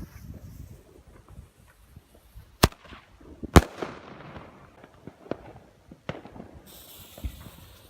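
Fireworks going off: two loud sharp bangs about a second apart, the second the loudest and echoing, then a few smaller, fainter bangs scattered through the rest.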